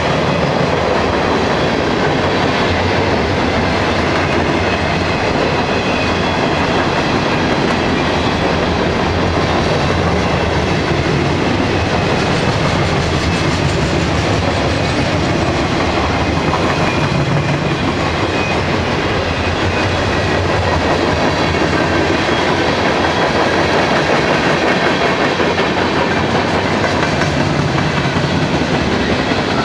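Freight train cars, autoracks and boxcars, rolling steadily past at close range: the continuous rumble and clatter of steel wheels on the rails.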